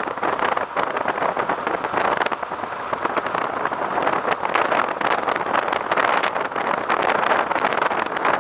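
Suzuki Bandit 1250 motorcycle riding at speed: a steady rush of wind over the microphone, with the engine running beneath it.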